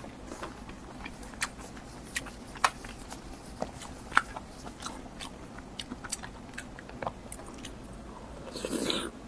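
Close-miked eating: chewing and biting with irregular sharp mouth clicks and smacks. A louder, noisier sound lasting about half a second comes near the end.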